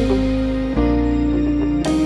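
Instrumental background music with held notes, the chord changing about three-quarters of a second in and again near the end.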